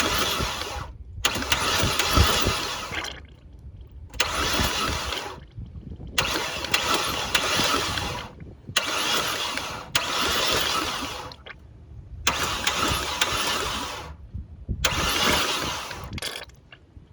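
Chevrolet Cruze 1.4-litre four-cylinder engine cranked over on the starter in about eight short bursts of one to two seconds each, with brief pauses between them.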